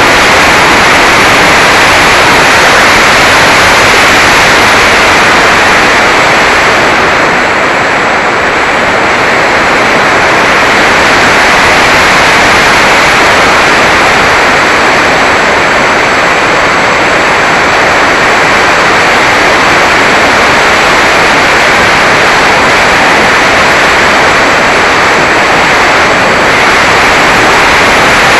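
Steady, loud rush of wind and propeller noise picked up by the camera mounted on a Mini Talon RC plane in flight. It eases slightly about eight seconds in.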